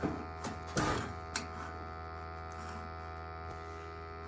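Steady electrical hum, with a few sharp clicks and knocks in the first second and a half.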